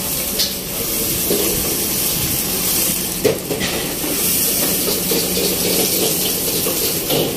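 Steady hissing noise of a hawker-stall cooking area, with a light clatter about three seconds in.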